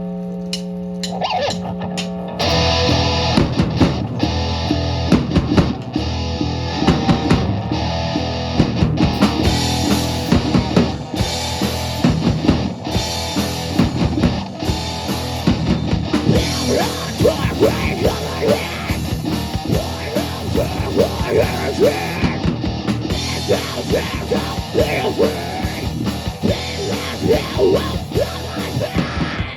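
Live rock band with drum kit and electric guitar. A steady amplifier hum and a few scattered hits come first, then the full band comes in about two and a half seconds in and plays loudly with busy drumming, without vocals.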